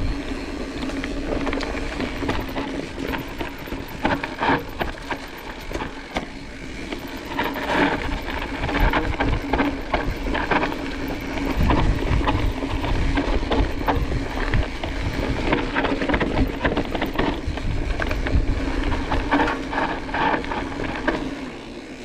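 Cross-country mountain bike ridden over a dirt trail, heard from an action camera mounted on the rider or bike: wind rumble on the microphone and tyre noise, with frequent rattles and knocks from the bike over rough ground.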